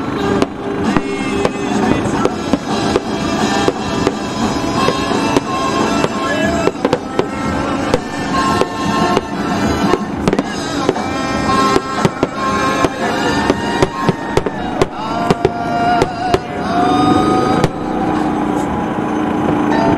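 Fireworks display: aerial shells bursting in quick, uneven succession, many sharp bangs and crackles, with music playing underneath.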